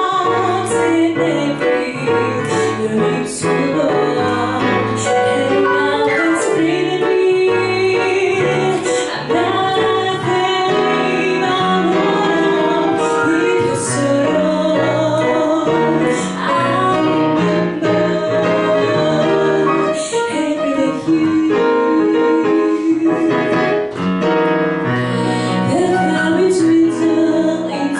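A woman singing a song into a handheld microphone, accompanied by a digital piano, continuously without a pause.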